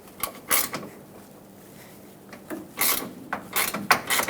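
Short metal scrapes and clinks of a 10 mm socket unscrewing a hood latch mounting bolt by hand, in a few separate bursts: one about half a second in, then a cluster around three to four seconds in.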